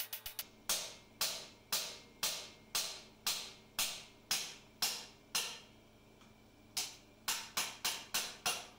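Repeated sharp knocks from hand-tool work on metal during a teardown. About ten come roughly two a second, then after a short pause a quicker run of five or six.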